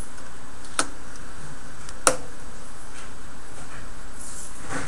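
Craft knife drawn along an acrylic ruler, cutting through paper on a cutting mat. There are two sharp clicks, the second the louder, and a faint scratchy hiss near the end.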